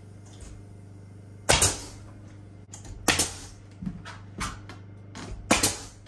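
Pneumatic nailer on an air hose firing several times at uneven intervals, each shot a sharp crack with a short hiss of air.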